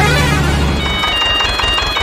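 A low hum that stops about a second in, then a simple high-pitched electronic jingle of single stepped notes, like an ice-cream-van chime.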